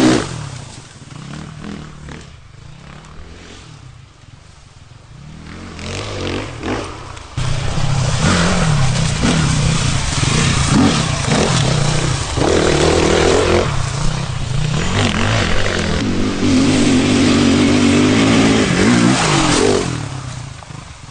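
Sherco 450 SEF-R dirt bike's single-cylinder four-stroke engine revving as it is ridden through the woods. It is loud as it passes at the start and drops away for a few seconds. From about a third of the way in it is loud again, rising and falling with the throttle, and it fades near the end.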